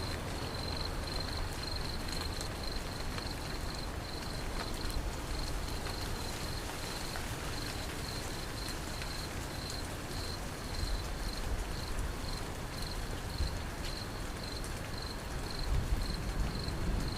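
A cricket chirping steadily, about three chirps a second, over a low rumbling background noise that swells slightly near the end.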